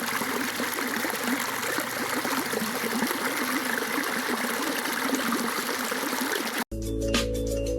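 Water running after rain, a steady babbling and trickling flow. About a second before the end it cuts off abruptly and music begins.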